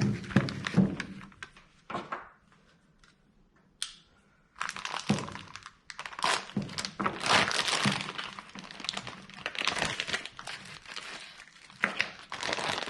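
Packaging wrap crinkling and tearing as shifter parts are unwrapped, with a few knocks, and a quiet pause of about two seconds early on before the crinkling resumes.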